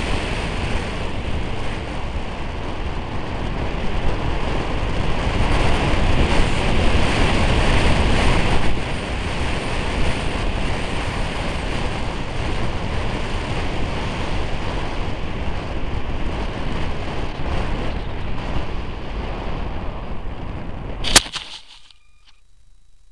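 Steady wind rush over the onboard camera of an electric RC Stryker flying wing gliding with its motor dead after an engine failure. It ends about 21 seconds in with one sharp thump as the plane lands in grass.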